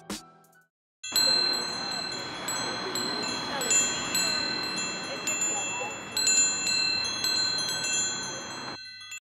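Chimes tinkling: many high ringing tones struck at staggered moments over a steady hiss. The sound starts about a second in, after a brief silence, and stops shortly before the end.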